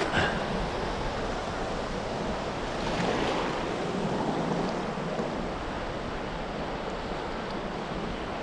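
Small surf waves washing and sloshing in shallow water around the wading angler, with wind buffeting the microphone; the wash swells a little about three seconds in.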